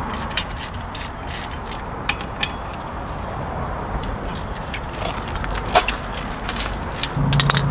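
Hand socket ratchet clicking in irregular runs as bolts on a front drum brake backing plate are worked loose, with one sharper clack just before the last two seconds. A low steady hum starts near the end.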